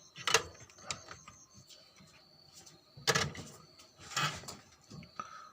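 Handling noises at a repair bench as jumper wire and small tools are worked over an opened phone: a few sharp clicks, with two longer rustles about three and four seconds in.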